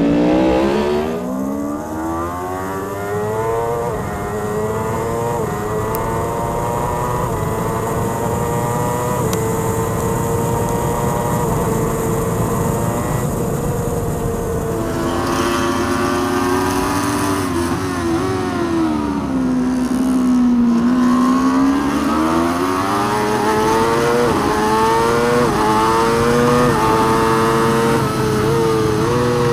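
Racing superbike engines heard from onboard cameras at track speed, first a Ducati Panigale V4 R's V4, then a Kawasaki ZX-10RR's inline-four. Each winds its pitch up through the gears, and about two-thirds of the way through the revs drop sharply on a downshift before climbing again under acceleration.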